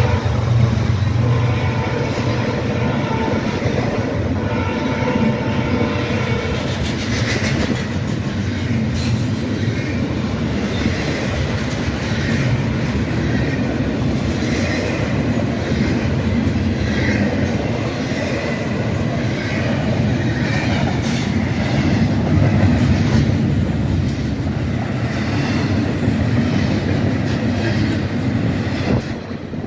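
Freight train rolling past close by: a steady rumble of railcars with wheels clicking over the rail joints and some wheel squeal. It gets quieter just before the end.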